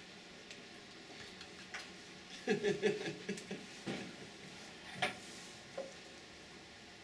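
A man's brief chuckling laugh, a quick run of short voiced pulses lasting about a second, starting about two and a half seconds in, followed by a few soft taps and clicks over a steady room hum.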